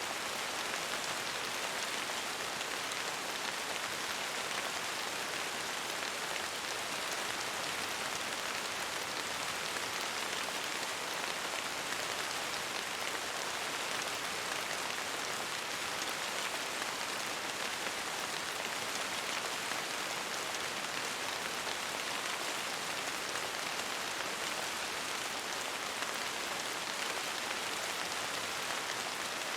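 Steady, even rain falling, a constant hiss with no single drops or thunder standing out.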